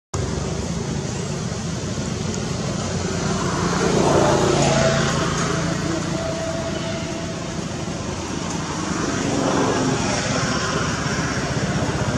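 Motor traffic running steadily in the background, with a vehicle passing louder about four seconds in and another about ten seconds in.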